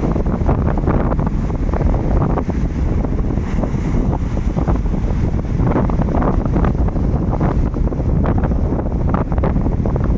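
Wind buffeting the microphone over sea waves washing and splashing: a steady low rush with frequent short splashes.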